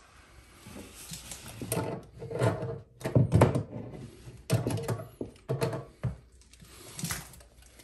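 Irregular knocks and handling clunks as a bidet supply hose fitting is hand-tightened onto the water connection under a toilet tank, the loudest a few seconds in.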